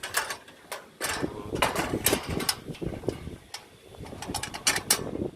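Irregular clatter of short knocks and scrapes, bunched about a second in, around two seconds in, and again near the end.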